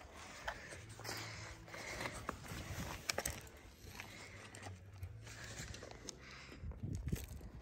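Faint scratching and crinkling of a razor blade cutting into a sticker on a race car's body panel and lifting it, with a few small sharp clicks.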